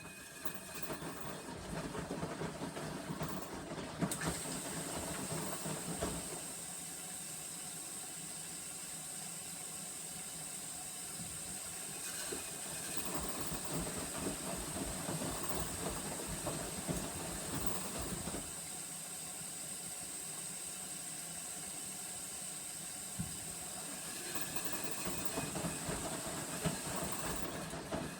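Panasonic drum-type washing machine running with an abnormal noise: a steady high hiss under a rattling clatter that comes in spells of several seconds and eases off in between.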